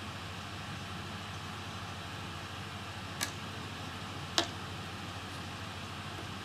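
Steady background hum and hiss, with two sharp clicks about a second apart, the second louder.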